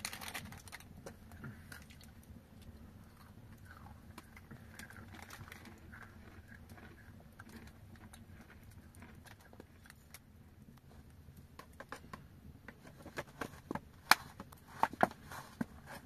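Foil snack wrappers crinkling as they are handled and opened, with a small wood fire crackling. A run of sharp clicks and snaps comes near the end, the loudest about two seconds before it finishes.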